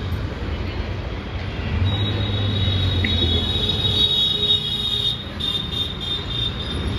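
Busy road traffic: car and motorbike engines in a steady low rumble. About two seconds in, a steady high-pitched whine joins it and holds.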